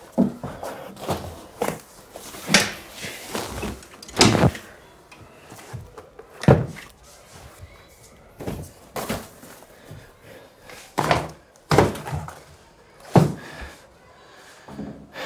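A series of about a dozen heavy thuds and bangs at uneven intervals, some with a short ring after them.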